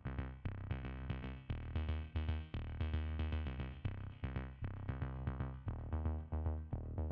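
Background electronic music with a steady drum-machine beat and synthesizer notes.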